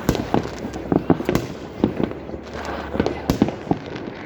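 New Year's fireworks going off in many places at once: a dense, irregular barrage of bangs and crackles, several a second.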